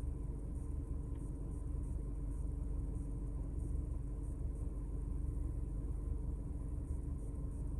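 Steady low rumble with a faint constant hum inside a car's cabin.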